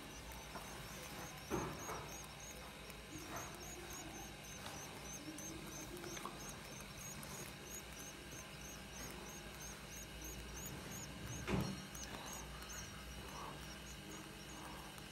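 Goldfinch nestlings begging: a rapid, even run of thin high peeps, about three to four a second, while they gape to be hand-fed. Two louder thumps sound, one about a second and a half in and one near the twelfth second.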